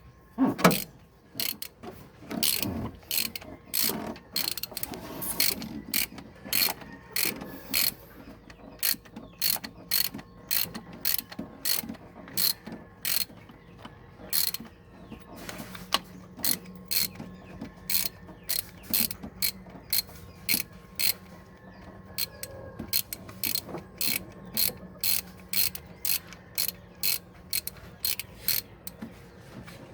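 Hand ratchet wrench clicking in steady runs, about two clicks a second, with a short break midway.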